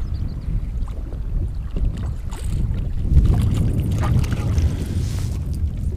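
Wind buffeting the microphone in a steady low rumble that grows louder about three seconds in, with small waves washing against the side of a boat.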